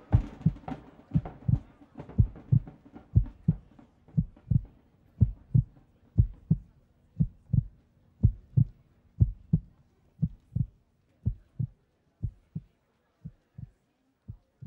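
Heartbeat sound effect: a low double thump, lub-dub, about once a second, fading steadily toward the end.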